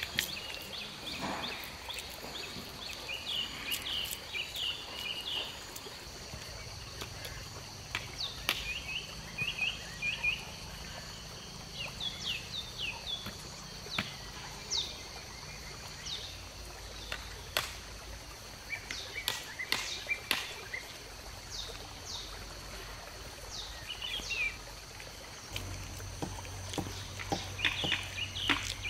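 Forest ambience: insects droning steadily at a high pitch, with birds chirping in short clusters of quick, falling notes scattered through, and occasional sharp clicks.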